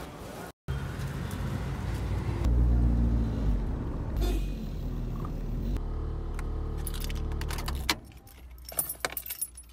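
Car engine and road rumble heard inside the cabin while driving, which stops about eight seconds in. Keys then jangle and click at the ignition as the key is handled.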